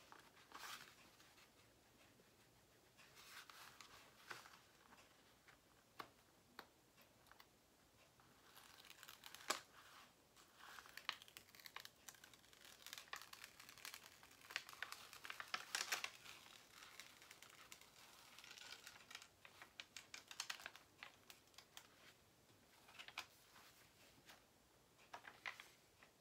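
Clear plastic film and paper strips on a diamond-painting canvas crinkling and rustling as they are handled and smoothed down, in soft irregular bursts with scattered sharp clicks and taps.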